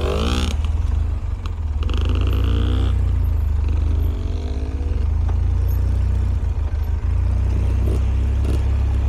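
ATV engine running steadily while riding along a dirt trail.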